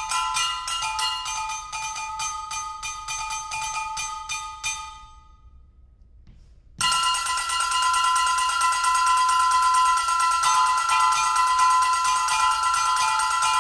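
Brake drums struck in fast, dense patterns, ringing metallically at several fixed pitches. The playing thins out and dies away about five seconds in, then breaks back in suddenly and loudly about a second and a half later with rapid strokes.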